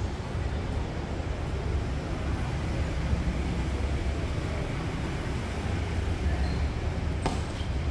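Steady low outdoor background rumble with one sharp tennis-ball strike near the end.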